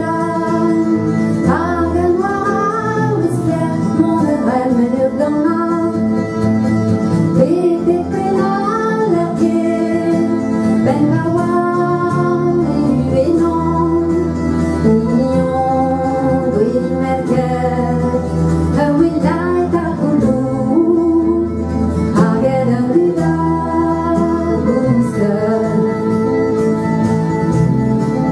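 A woman singing a song in Breton live on stage, accompanied by transverse flute and acoustic guitars.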